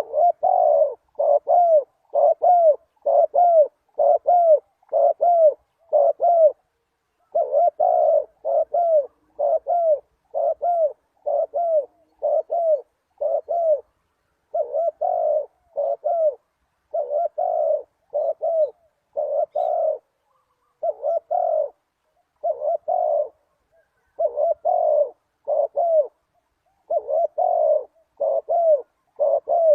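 Spotted dove cooing: short, arched coo notes repeated about twice a second in long phrases broken by brief pauses.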